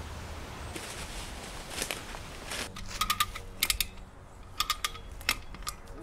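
Hand ratchet clicking in several short runs of quick clicks from about two and a half seconds in, as the line pulling on the tree is tightened.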